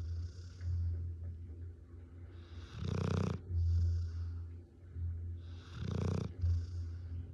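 Rottweiler snoring in her sleep, loud enough to sound like a man: two loud snores about three seconds apart, each followed by a hissing breath.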